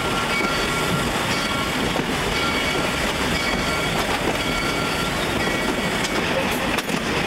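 Passenger train coaches running on the rails, heard from an open window: a steady rolling rumble of wheels on track, with a faint high squeal from the wheels that comes and goes.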